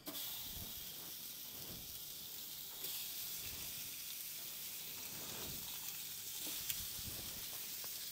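Raw camel steaks sizzling as they are laid on a barbecue grill heated to 250 °C. The sizzle starts suddenly as the first steak goes on and gets louder about three seconds in as another is added.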